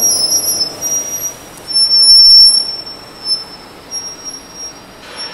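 A roll forming machine running, rolling sheet steel into a ribbed panel through its roller stands. A high-pitched metallic squeal comes and goes over the steady machine noise.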